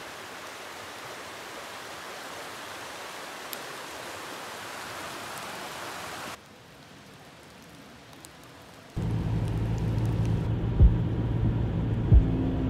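Steady rushing of a rocky mountain stream for the first half. About nine seconds in, louder background music with a steady beat comes in.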